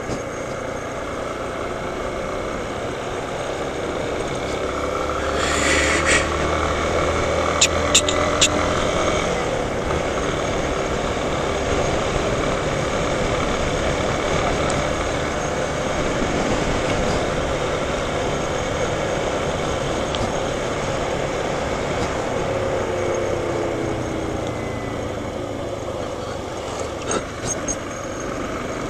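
Motorcycle engine running as the bike rides along a street, with steady wind and road noise; the engine pitch rises and falls with speed. A few short sharp clicks about eight seconds in and again near the end.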